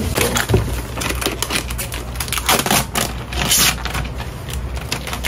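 Cardboard box and clear plastic bag being handled while a wheel is unpacked: a run of rustles, scrapes and crinkles, loudest in crackling bursts around the middle.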